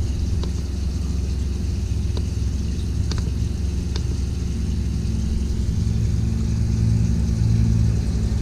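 Caravan's 12 V water pump running with a steady low hum, a little louder from about five seconds in. A few faint clicks of the battery monitor's buttons being pressed.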